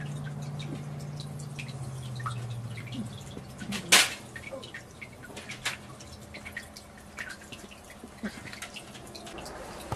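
Two Maltese puppies play-fighting: scattered small clicks and taps from their paws and mouths, with one sharp knock about four seconds in. A low steady hum fades out about three seconds in.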